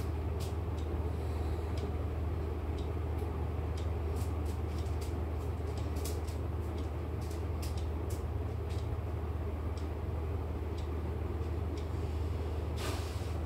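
Steady low hum of shop ambience, with scattered light clicks and ticks throughout and a short hiss near the end.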